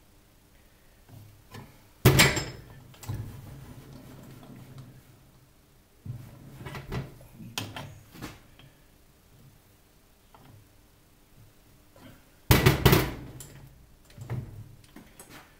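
Lathe tool holder and key knocking against the toolpost as a cutting tool is fitted: one loud knock about two seconds in and a loud double knock near the end, with lighter clicks and taps between.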